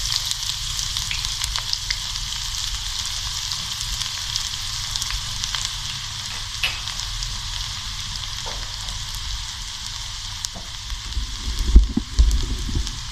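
Chopped onions frying in hot oil in a frying pan, being browned: a steady sizzle with scattered crackles that eases slightly over time. A few low thumps near the end.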